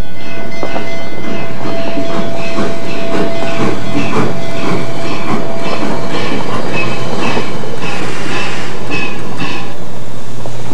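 Narrow-gauge passenger car rolling along the track, its wheels clattering and clicking irregularly over the rail joints. A thin steady tone sounds through roughly the first half.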